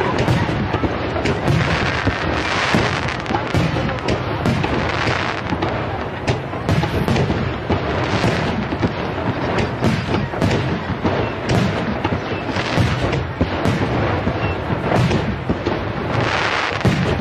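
Aerial firework shells bursting in a dense, unbroken finale barrage heard from almost directly below, with sharp bangs several times a second and patches of crackling among them.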